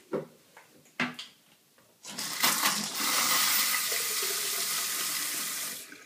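Water spraying from a handheld shower head into a ceramic basin, fed from a mixer tap through a push-in quick-fit hose adaptor. It starts about two seconds in as the tap is turned on, runs steadily, then stops just before the end.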